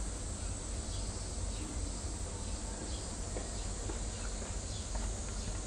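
Outdoor ambience: a steady high drone of insects over a low, steady rumble.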